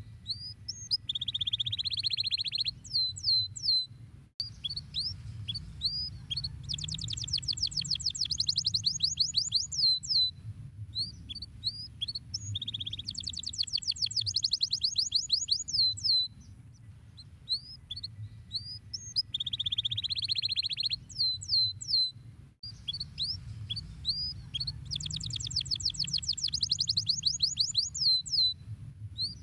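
Domestic canary singing: rapid rolling trills of high, quick downward-sweeping notes alternate with buzzy passages and single chirps, over a steady low hum. The same song passage repeats about every 18 seconds.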